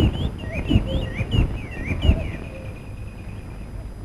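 Birds chirping in quick rising and falling calls, with one held whistle about two seconds in. Under them are hiss and several low thumps from an old, worn film soundtrack.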